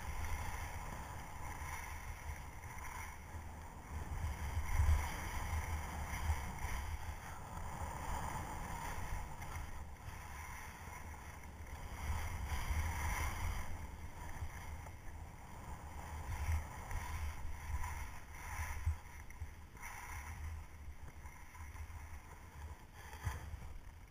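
Wind buffeting the microphone with a low rumble while skis scrape and hiss across firm snow, the scraping swelling and fading with each turn. The noise drops off near the end as the skier comes to a stop.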